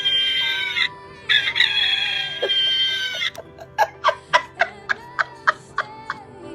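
A novelty sound keychain playing a recorded rooster crow. The first crow ends about a second in, a second long crow falls away at its end, and it finishes with a quick run of about ten short clucks.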